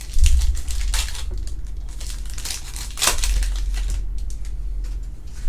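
Crinkling and crumpling of a trading-card pack wrapper being handled and torn open, loudest twice, with dull handling bumps underneath; the crinkling dies away about four seconds in.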